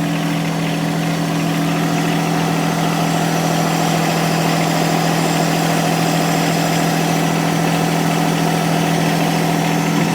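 John Deere 1023E compact tractor's three-cylinder diesel engine idling steadily while it warms up.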